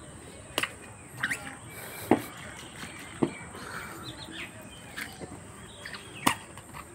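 A handful of short, sharp slaps and splashes, spaced a second or more apart, as a toddler's hands and sandaled feet hit a shallow rain puddle on pavement, the strongest about two seconds in and near the end. Faint bird chirps sound in the background.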